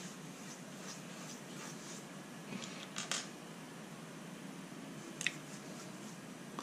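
Faint handling noise of small plastic parts and thin antenna wires: soft rustling with a few light clicks, a pair about three seconds in and one more about five seconds in.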